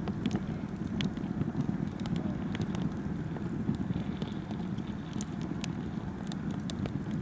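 Scattered sharp crackles and ticks over a low steady rumble.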